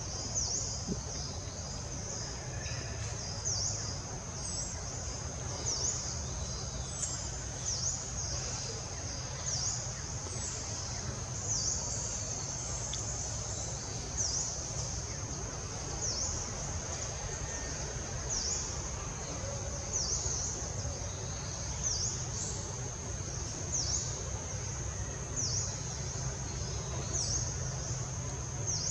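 A forest insect chorus: a steady high buzz with a short chirp repeating a little more than once a second, over a steady low rumble.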